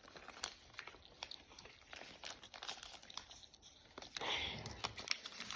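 Plastic wrapping crinkling and crackling, with irregular small clicks and a louder rustle about four seconds in, as miniature toy items are handled and unwrapped.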